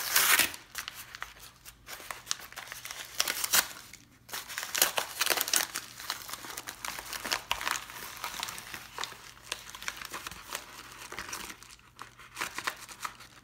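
Padded paper mailer envelope being torn open and crumpled by hand, crackling and crinkling in irregular bursts.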